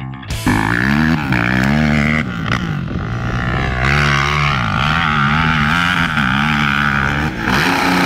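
Yamaha YFZ450 quad's single-cylinder four-stroke engine revving hard through the gears, its pitch climbing and falling with each shift, then held at high revs for about three seconds on the run-up to a big dirt jump before easing off near the end.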